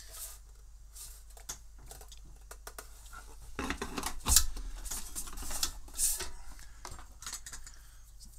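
Handling of a bread maker's baking pan and parts in the machine: scattered clicks and knocks of metal and plastic, with the loudest knock about four seconds in, over a low steady hum.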